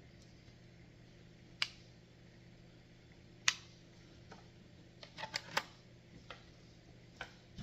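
Sparse light clicks and taps from handling small plastic and metal parts, single ones at first and then a quick cluster about five seconds in, over a faint steady hum.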